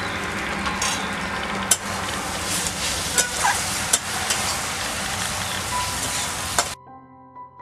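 Onion and spice masala sizzling in hot oil in a pan while a metal spatula stirs and scrapes through it, with a few sharp clicks of the spatula against the pan. This is the masala being fried down (kashano) until the oil separates. About seven seconds in, the sizzling cuts off suddenly and soft piano music takes over.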